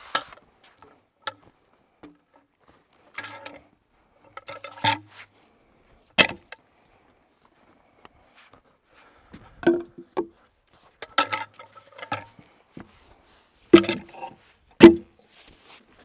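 Irregular knocks and clanks from a cant hook's steel hook and logs knocking together as logs on a deck are handled, about a dozen separate strikes, the two loudest near the end.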